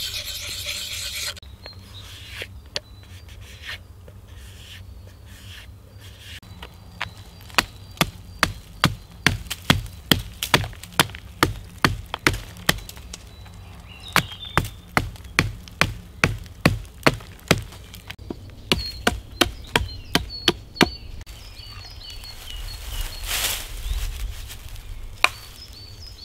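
A stone rasps across a hatchet blade for about a second at the start. Then a small hatchet chops into a branch, sharp strikes at roughly two a second in runs with short pauses.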